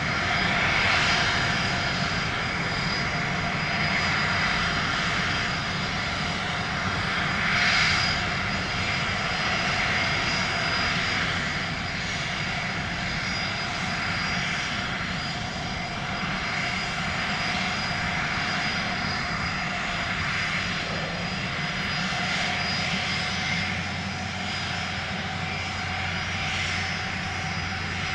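Small drone's motors and propellers running steadily, a whirring hum with a constant high whine, swelling slightly a couple of times.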